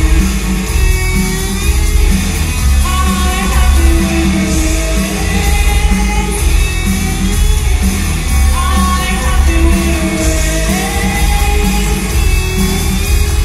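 Live rock band playing loudly in a large hall: a woman sings lead into a microphone over electric guitar and drums, with a heavy, pulsing low end.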